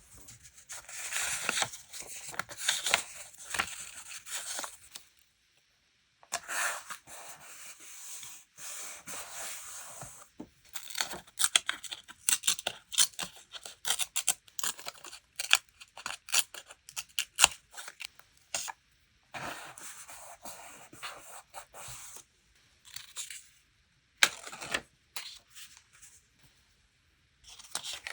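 Paper and stickers handled close to the microphone: rustling and tearing, broken by short pauses, with a long run of quick, crisp clicks and snips in the middle.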